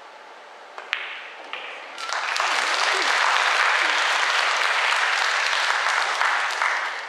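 A sharp crack of a pool break shot about a second in, followed by a couple of ball clicks. Audience applause then swells from about two seconds in, holds, and fades near the end.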